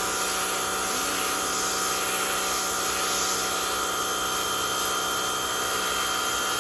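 Rock&Rocker HWY12 high-pressure washer running steadily, its motor whine over the hiss of the water jet held close against concrete.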